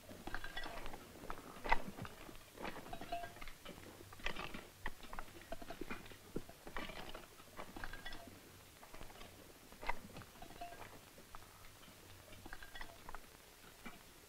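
Hand digging in earth and stones, heard as irregular crunching and scraping strokes with occasional sharper knocks.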